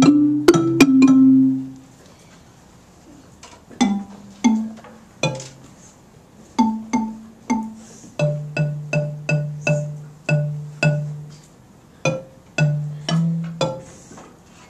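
Orff bass xylophone's low wooden bars struck one note at a time with mallets, each note ringing briefly. One short piece ends about a second and a half in. After a pause, a new piece starts with slow separate notes that pick up to about two notes a second.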